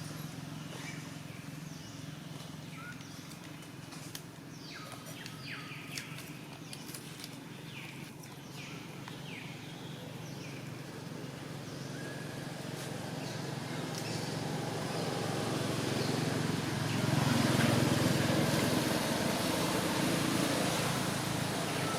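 A motor vehicle engine runs steadily and grows louder to a peak a few seconds before the end, as if coming closer. Short high chirps and a few clicks sound in the first half.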